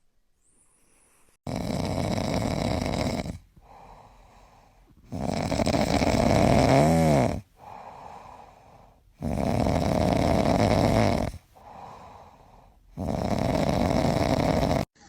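A sleeping cat snoring loudly: four long rasping snores about every four seconds, with softer breaths between them. The second snore carries a brief wavering whistle.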